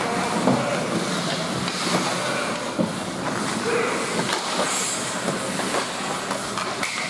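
Ice hockey rink sounds: a steady scraping wash of skates on the ice, broken by scattered sharp clicks and knocks of sticks and puck.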